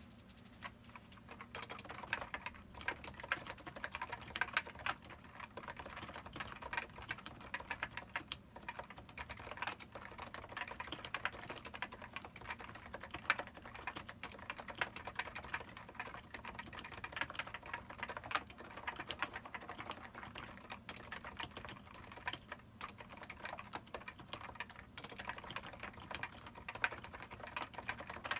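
Typing on a Topre Type Heaven keyboard: 45 g electrostatic capacitive rubber-dome switches with stock, unlubricated sliders, stabilizers lubed with Krytox 205, under Hi-Pro PBT dye-sub keycaps. It is a fast, continuous stream of keystrokes with a few short pauses.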